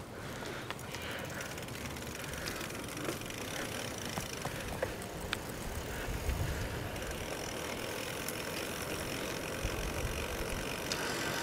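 Giant FastRoad Advanced 1 flat-bar road bike rolling along on the road: steady tyre and riding noise, a low wind rumble on the handlebar-mounted microphone, and a few light scattered clicks.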